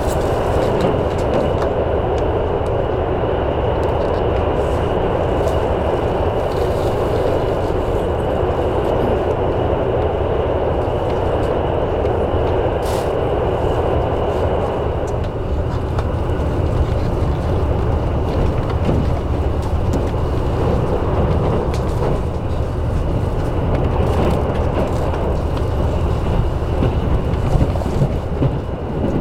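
KiHa 85 series diesel railcar running, heard from inside the passenger cabin: a steady rumble of wheels on rail and diesel engine. The mid-range part of the noise fades about halfway through.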